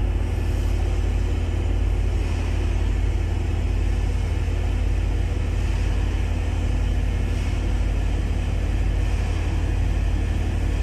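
Steady low rumble and hum of running engine-room machinery, heard from inside a ship main engine's scavenge space.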